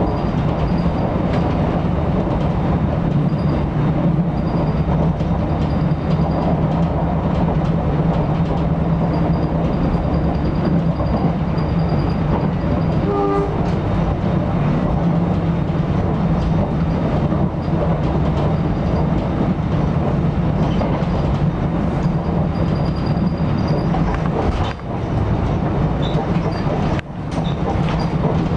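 Cabin noise inside a moving electric commuter train at speed: a steady rumble of wheels on the rails with a low hum. A short tone sounds a little under halfway through, and the noise dips briefly twice near the end.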